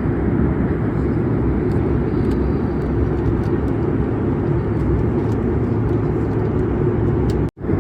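Airliner cabin noise in cruise flight: a steady low rumble and rush of air. It cuts out abruptly for a moment near the end.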